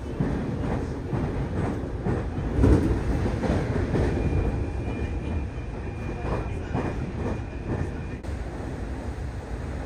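Train running on rails: a steady low rumble with irregular clatter from the wheels, and a thin high whine held for a few seconds in the middle.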